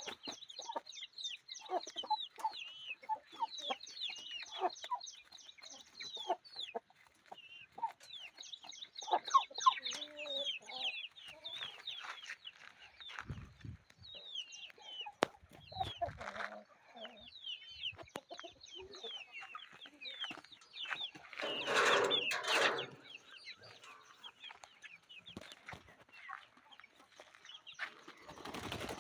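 Chickens clucking, with many rapid, high, short chirps over the clucks through most of the stretch. A louder noisy burst comes about two-thirds of the way in.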